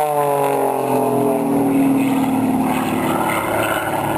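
Aerobatic plane's propeller engine droning, its pitch falling over the first two seconds and then holding steadier.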